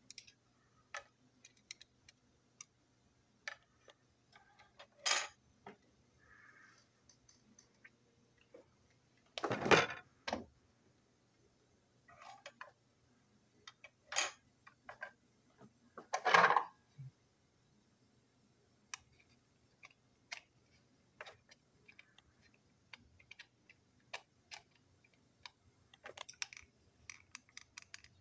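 Small plastic and metal parts of a toy train engine being handled and taken apart, making scattered light clicks and taps. Four louder clatters come as pieces are set down on the table; the loudest are about ten and sixteen seconds in.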